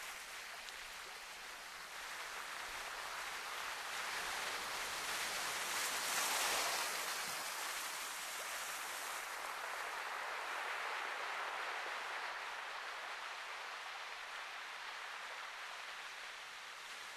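Sea surf: a steady hiss of waves that swells slowly to a peak about six seconds in, eases, and swells again more gently a few seconds later.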